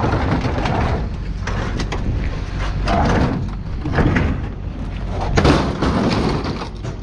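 A sheet-metal clothes dryer being shoved across a steel diamond-plate truck bed and off the tailgate: metal scraping and banging several times, the loudest clank about five and a half seconds in, over a steady low hum.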